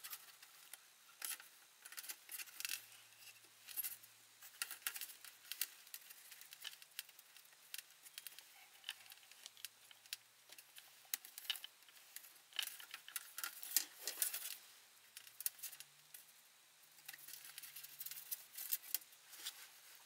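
Small, irregular clicks, taps and light rattles of hands handling an LCD monitor panel's sheet-metal frame and fittings while putting it back together.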